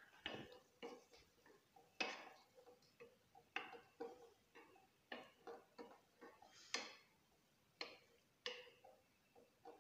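Faint, irregular taps and slaps, about one or two a second, as yeast dough is kneaded by hand on a round board.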